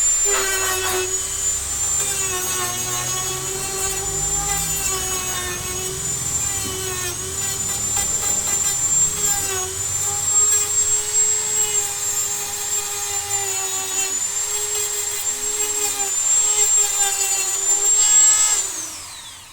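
Dremel rotary tool running at high speed with a steady high-pitched whine, its pitch dipping slightly now and then as it bears into the work. Near the end it winds down with a falling whine and stops.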